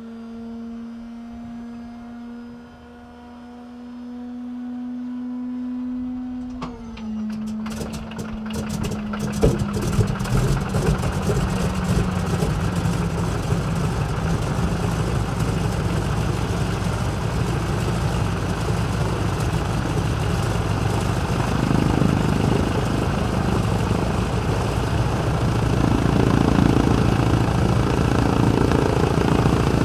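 Noorduyn AT-16 Harvard Mk IIB's Pratt & Whitney R-1340 Wasp nine-cylinder radial engine being started. The starter whines, rising slightly for about six seconds, then drops in pitch as it is engaged. After a few sharp firing cracks the engine catches about nine seconds in and settles into a steady idle.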